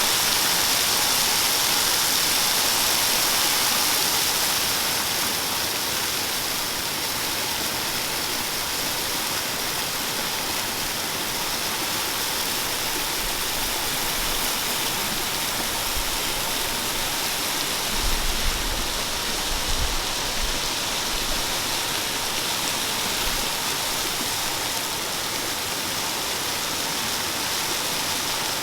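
Steady rush of flowing water from a waterfall or fast creek, with a few brief low thumps about two-thirds of the way through.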